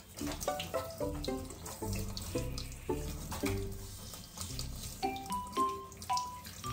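Water spraying from a handheld shower head onto a wet kitten's coat, under background music of short melodic notes.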